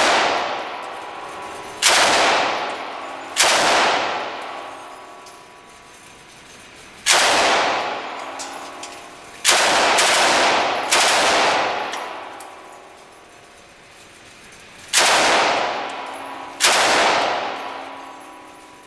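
Belt-fed light machine gun fired in seven short bursts, irregularly spaced, each one echoing and dying away over a second or two in an indoor range.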